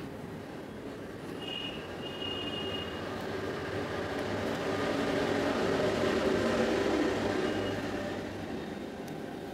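Low rumbling noise that builds to its loudest about six seconds in and then fades, like a vehicle passing by. A brief high steady tone sounds about a second and a half in.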